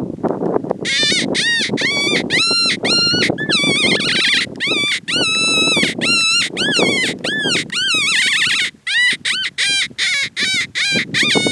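Predator call sounding a rapid run of high, canine-like whining yelps, each note rising and falling in pitch, to lure coyotes in. It starts about a second in and goes on with only short breaks.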